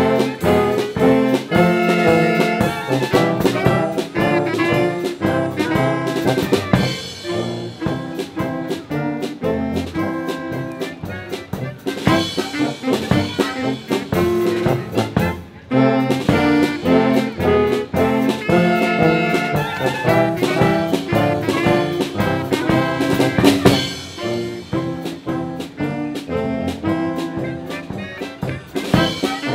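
Brass band music in the German Blaskapelle style, with trumpets, trombone and drum kit playing over a steady beat. The music breaks off briefly about halfway through.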